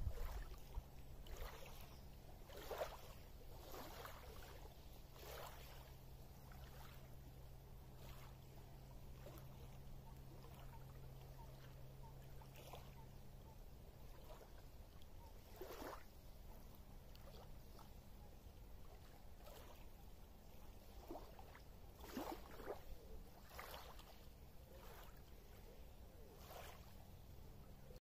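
Small lake wavelets lapping softly on a pebbly shore, in irregular little splashes every second or two. A low thump comes right at the start, and a faint low steady hum stops about halfway.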